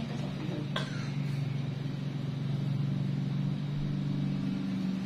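A motor running steadily with a low, even hum, and a single sharp click about a second in.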